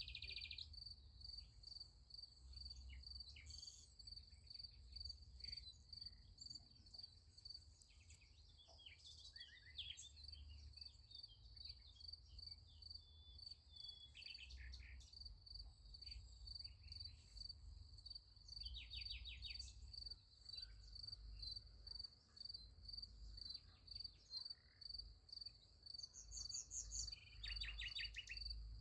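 Crickets chirping faintly in a fast, even pulse, with scattered bird chirps and a few short bird trills over a low rumble.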